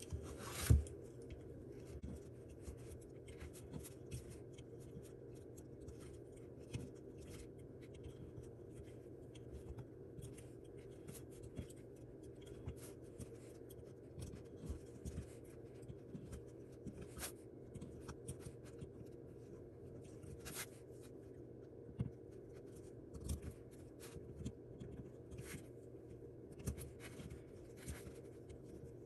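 Faint, irregular light clicks and scrapes of a metal loom hook lifting yarn loops over the pegs of a wooden oval sock loom, a few per second, over a faint steady hum.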